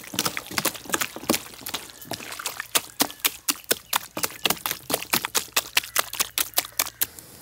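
Hands squishing and slapping through a large heap of mutton pieces coated in yogurt and ground spice pastes, mixing in the marinade. It is a quick, uneven run of wet squelches, about three or four a second, that stops near the end.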